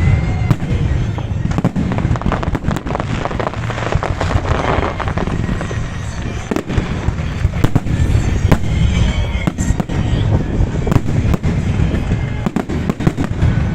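Fireworks salute display going off: a dense, unbroken run of sharp bangs and crackles, many overlapping, over a deep rumble.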